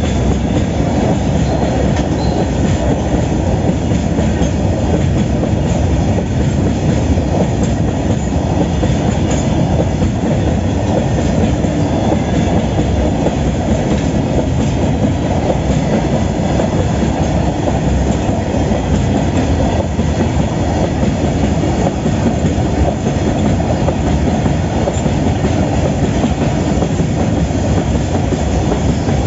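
Freight train hauled by a WAG-9HI electric locomotive rolling past at speed: a steady, loud rumble of wheels on the rails that runs without a break.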